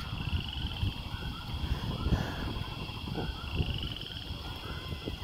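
Outdoor background: a low rumble on the microphone with faint, repeated animal calls, including two short high trills.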